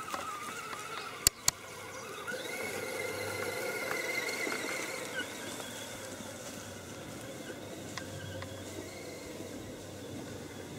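Electric motor and gearbox of a radio-controlled scale crawler whining as it climbs, the pitch drifting up and down with the throttle and strongest a couple of seconds in. Two sharp clicks just over a second in are the loudest sounds.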